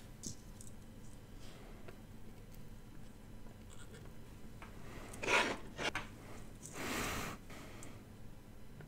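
Soldering connector pins onto a small circuit board: faint scratching, rubbing and light ticks of the iron and solder against the pads, with two short rushes of noise about five and seven seconds in.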